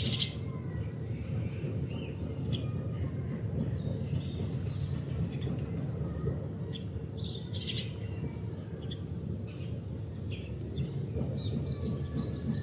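Male house sparrow chirping: short, separate chirps now and then, over a steady low background rumble.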